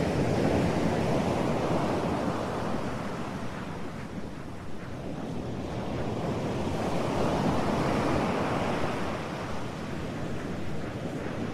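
Ocean surf: a steady rushing wash of waves that swells and ebbs slowly, one surge at the start and another building past the middle.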